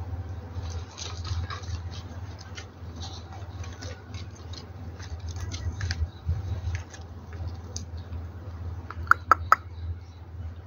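Light, scattered pattering and scratching of cats' paws on corrugated roofing sheets over a steady low hum. Three sharp clicks in quick succession come about nine seconds in.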